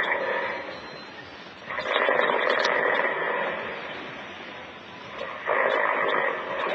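Recorded snoring of a young man played back: loud snores, each over a second long, repeating about every three and a half seconds with quieter breathing between, likened to a little motorbike.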